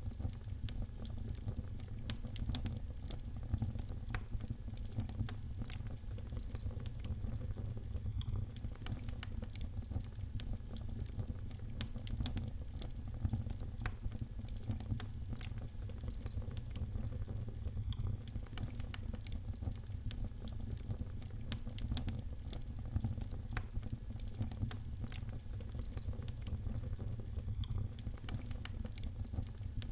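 Wood fire crackling in a fireplace: a dense scatter of small pops and snaps over a steady low rumble of burning.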